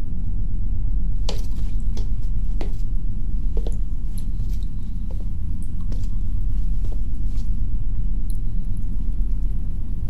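Muffled low rumble of wind, steady throughout, with a scattering of faint ticks and clicks over it.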